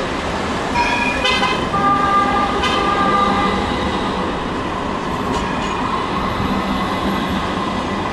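Tram running past on street rails, with a horn sounding for about two seconds about a second in.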